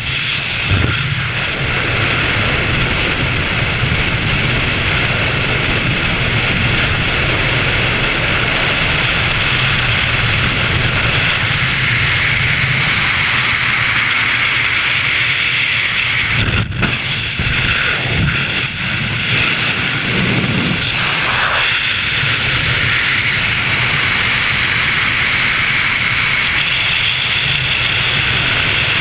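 Loud, steady rush of freefall wind buffeting a skydiver's helmet-camera microphone, with a brief dip about two-thirds of the way through.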